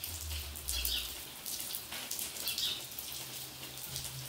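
Steady rain falling, an even hiss throughout.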